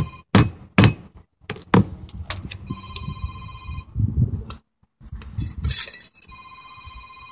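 Roofing hammer driving a nail through a metal hold-down clip on a metal roof panel's edge: several sharp blows in the first two seconds. A phone rings in the background, about a second of ringing every three and a half seconds.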